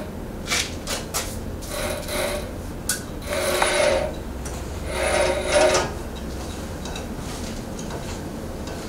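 Bandsaw's open blade wheel and blade being handled and turned by hand while the blade tracking is adjusted. There are a few sharp clicks, then two rubbing, whirring scrapes of under a second each, about three and a half and five seconds in.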